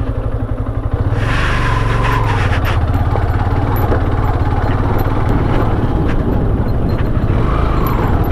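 Motorcycle engine running steadily under way, with wind noise over the microphone; the engine note briefly rises and falls about a second in and again near the end.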